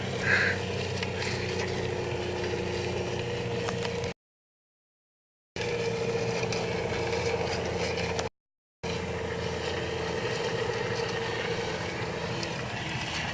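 Car engine running steadily while it tows a sled through snow, with a constant hiss of snow and wind. The sound cuts out to dead silence twice, for about a second and then for half a second.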